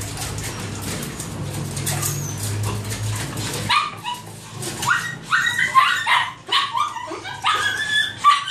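Several caged small dogs whining and yipping at feeding time. The short, high calls become many and overlapping from about four seconds in. A low hum under the first few seconds stops at about the same point.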